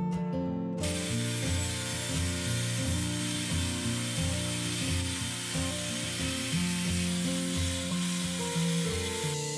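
Table saw ripping the edge of a pine plank: a steady cutting noise that starts about a second in and falls away near the end.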